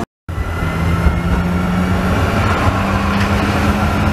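Old Basel BVB electric tram running, heard from on board: a steady rumble of wheels on rails with a low motor hum that steps up in pitch about two seconds in as it gathers speed. The sound cuts out briefly at the very start.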